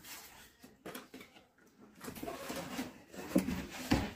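Cardboard rubbing and scraping as a boxed product is pulled up out of a cardboard shipping carton, with two knocks near the end.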